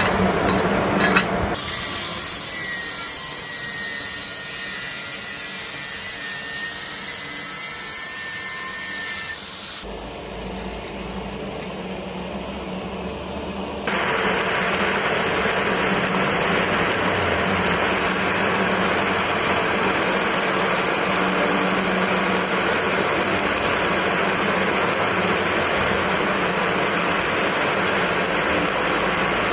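Shielded metal arc (stick) welding with a 7018 electrode: from about halfway in, a steady, dense crackling hiss of the arc burning. Before that comes a thinner, higher tool noise with faint whistling tones, then a quieter moment.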